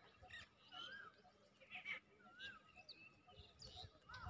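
Faint birdsong from several small birds: one repeats a short rising-and-falling whistled note every second or so, and others add scattered high chirps.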